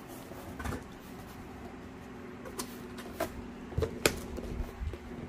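Cardboard box flaps being folded open and handled, with a few scattered knocks and rustles over a faint steady hum.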